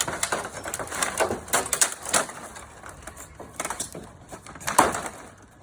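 A series of irregular sharp knocks and clatters, the loudest about a second before the end.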